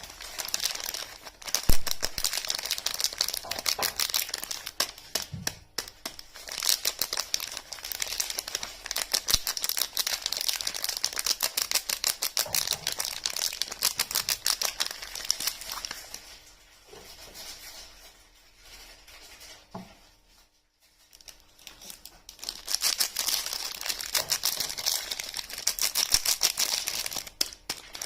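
Paper or plastic wrapping on bars of soap being crinkled and torn in close-up, a dense run of crinkling; it thins out about two-thirds of the way through, stops almost completely for a moment, then starts up again.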